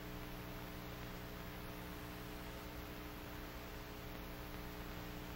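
Steady low electrical hum with hiss, the background noise of an old film soundtrack; nothing else sounds.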